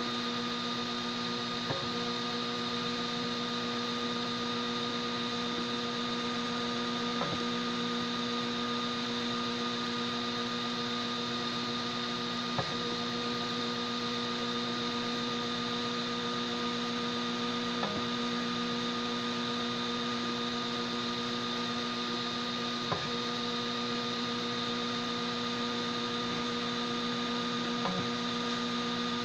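Homemade 3D printer running while printing, a steady electrical hum made of several fixed tones, with a faint tick about every five seconds.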